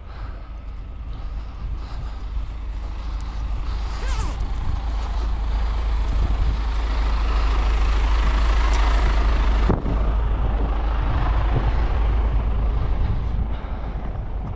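Heavy truck engine running under load, growing louder through the first half. The sound breaks off briefly about ten seconds in, then carries on.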